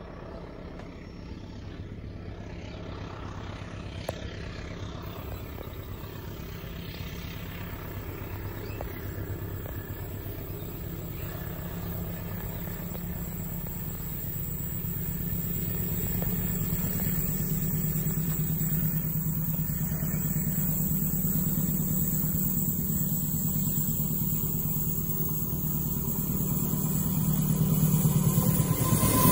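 Diesel-electric locomotive hauling a passenger train approaches, its low engine drone growing steadily louder and peaking as it draws level near the end.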